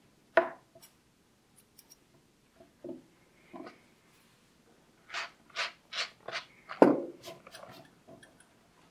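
Curved grooming scissors snipping a small dog's foot hair: a few scattered snips early on, then a run of five quick snips about three a second. Two louder knocks stand out, one just after the start and one right after the run of snips.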